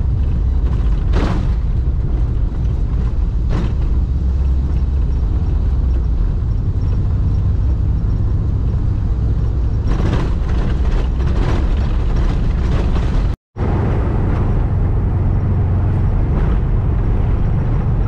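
Volkswagen Kombi van driving along a paved road: a steady low engine-and-road rumble. It drops out for a moment about 13 seconds in.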